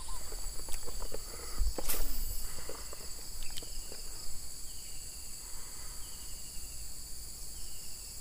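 Steady high-pitched chorus of insects, with a short falling chirp repeated about once a second in the second half. A single sharp knock comes about two seconds in.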